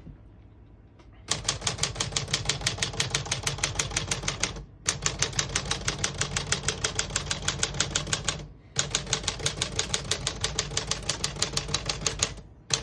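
1951 Smith-Corona Silent portable typewriter being typed on. Its typebars strike the platen in rapid, even runs of about seven keystrokes a second, starting about a second in, with two short breaks.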